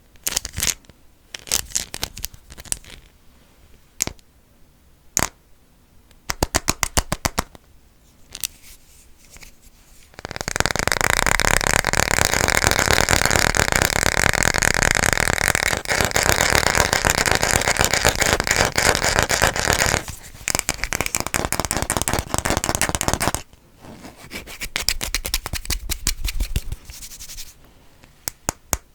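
Fast, irregular tapping on assorted objects. About ten seconds in it gives way to a long spell of loud, rapid, continuous scratching, and near the end it returns to scattered taps.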